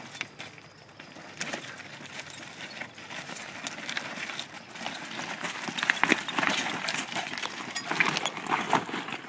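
Loaded wooden handcart's spoked, rubber-tyred wheels rolling over loose creek-bed stones, with a dense run of crunches and clicking knocks of rock against rock, mixed with footsteps crunching on the stones. It gets louder about halfway through.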